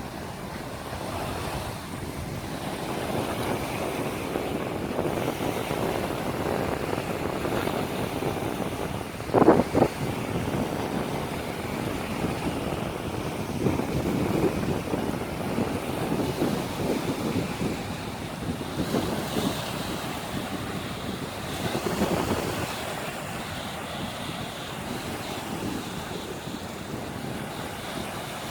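Small sea waves washing onto the shore in slow surges, with wind rumbling on the microphone. A brief loud bump about a third of the way through.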